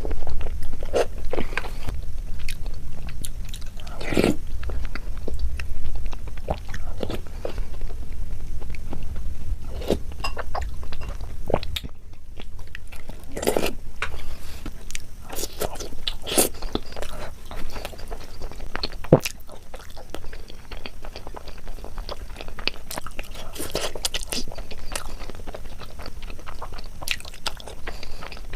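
Close-miked eating sounds: a person biting and chewing Indian sweets, with irregular crunches and wet chewing clicks.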